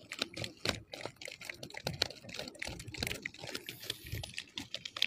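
Freshly caught tamban sardines shifting and slapping against each other in a foil-lined insulated bag, a rapid, irregular patter of small wet clicks and taps.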